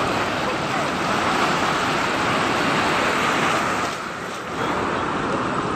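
Strong ocean surf breaking on a beach: a steady, dense rush of water noise that eases briefly about four seconds in, then returns.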